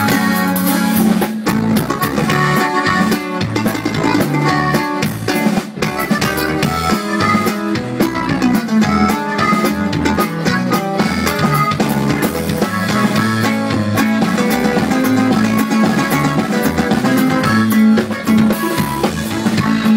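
Live band playing an instrumental break between sung verses of a Spanish-language song, with drums and plucked strings keeping a steady beat.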